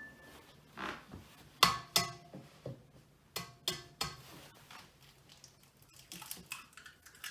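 An egg knocked against the side of a mixing bowl to crack it: several sharp taps that ring briefly off the bowl, in two short groups, then lighter clicks and handling near the end.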